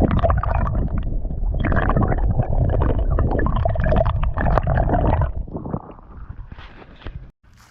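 Creek water splashing and sloshing close by as a child plays and wades in it, dying down about five seconds in.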